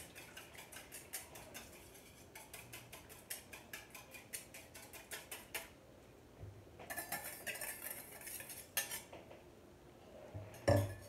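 Wire whisk beating water and vinegar in a small stainless steel bowl: quick, even clicking of metal on metal that stops about six seconds in. After a short lull come a few scattered metal clinks and a sharp knock near the end.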